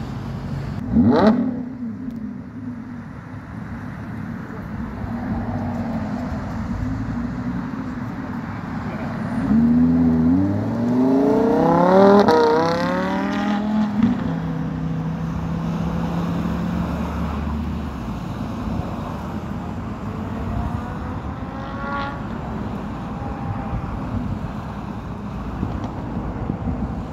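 A sports car's engine accelerating hard along the road, revving up in a quick series of rising sweeps as it shifts up through the gears, then running at a steady drone as it carries on. A short sharp engine rise comes about a second in, and another brief rev about twenty-two seconds in.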